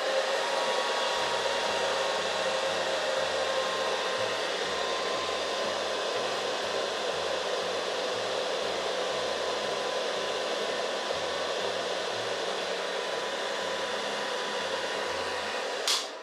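12V PTC car heater's fan blowing steadily with both of its heating elements switched on, a rush of air with a faint whine under it, drawing about 14 amps straight from solar panels. It cuts off suddenly near the end.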